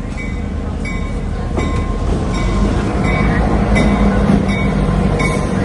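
A train approaching, its low rumble and hum growing louder from about a second and a half in, while a bell rings at an even beat of about one and a half strikes a second.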